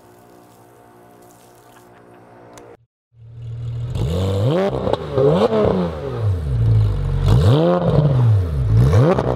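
A quiet steady hum of held tones, then, after a brief drop to silence about three seconds in, a loud engine revving up and down over and over, each rev a quick rise and fall in pitch.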